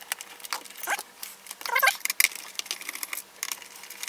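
Plastic clicking and rattling as a car heater control unit's housing is worked apart with a screwdriver, with a couple of short squeaks, the loudest a little under two seconds in.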